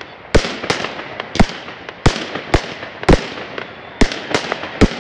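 Aerial firework shells bursting in quick succession: about nine sharp bangs in five seconds at uneven intervals, each trailing off in echo.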